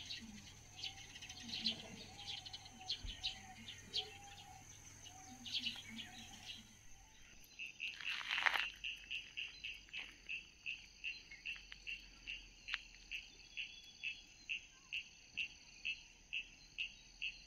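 Evening insect chorus: a steady high buzz, with bird chirps in the first half. From about halfway, an insect chirps evenly about twice a second. A short rush of noise about eight seconds in is the loudest moment.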